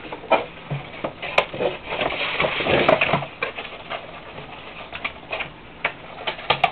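Cardboard box and foam packing being handled on a tabletop: rustling, scraping and light knocks, thickest into a longer scrape about two to three seconds in, with sharp clicks near the start and near the end.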